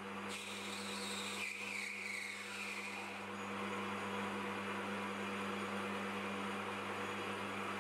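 Warco GH1330 gear-head metal lathe running with a steady hum while a turning tool faces the end of a solid brass bar, the cut adding a hiss. The cutting sound is brighter in the first few seconds.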